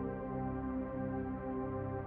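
Soft ambient background music of sustained, steady synthesizer-like tones.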